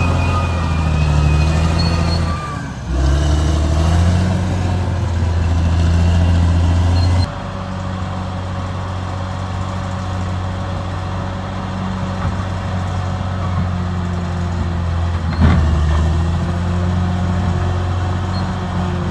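Caterpillar D6R XL bulldozer's diesel engine running under varying load, its pitch dipping and rising again about three seconds in. The sound drops abruptly in level about seven seconds in, and there is a single sharp knock about fifteen seconds in.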